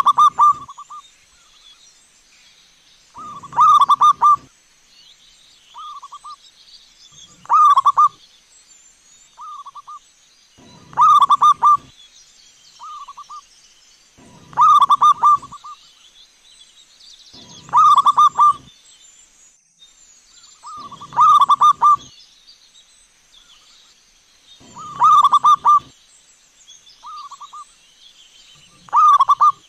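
Zebra dove (perkutut) cooing: a rolling phrase of quick coos, about a second long, repeated steadily roughly every three and a half seconds, with a shorter, softer coo between most phrases.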